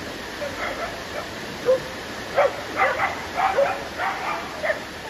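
Shallow creek water running steadily over rocks, with a quick run of short yelps starting about a second and a half in, loudest around the middle.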